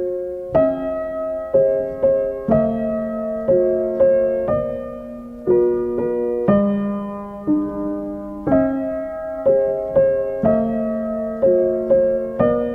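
Background piano music: a slow, gentle melody of single struck notes and chords, about one a second, each ringing and fading.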